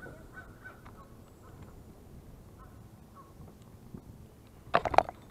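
A short burst of loud honking bird calls, a few quick notes close together near the end.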